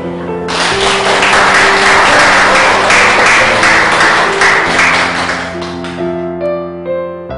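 An audience clapping, starting about half a second in and dying away near the end, over soft piano background music.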